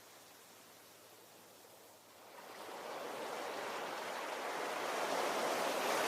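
Ocean surf: a quiet lull, then a wave building from about two seconds in and breaking loudest near the end.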